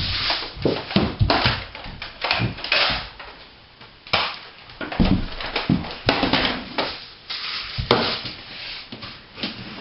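Irregular thumps, knocks and clatter of children scuffling on a wooden floor while playing with a toy Nerf blaster, with a scatter of sharp knocks and a few louder noisy bursts.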